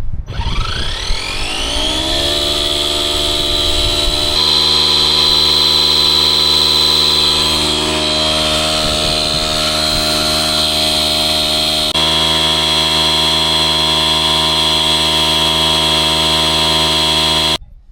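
Electric tyre inflator (portable air compressor) pumping air into a repaired car tyre: its motor spins up with a rising whine over the first couple of seconds, runs steadily, then cuts off suddenly shortly before the end.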